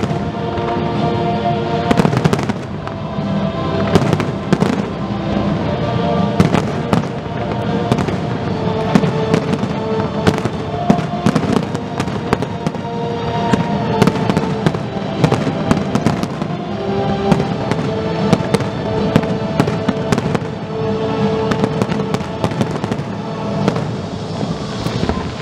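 Aerial firework shells bursting in rapid succession, many sharp reports throughout, over music playing steadily underneath.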